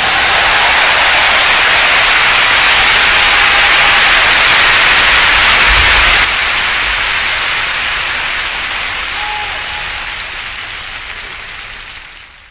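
A loud, steady hiss like static or white noise after the music stops. Its brightest part cuts out about halfway through, and it then fades away toward the end.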